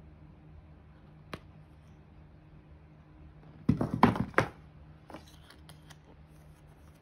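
Hands handling an iPhone and its cardboard box: a single light click, then, a little under four seconds in, a short cluster of cardboard-and-paper rustling and knocks as the phone comes out of the box. A few faint clicks follow.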